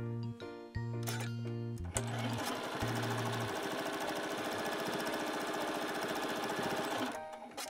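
Electric sewing machine stitching a fabric strip onto a quilted panel at a steady, fast speed, starting about two seconds in and stopping shortly before the end, over light background music.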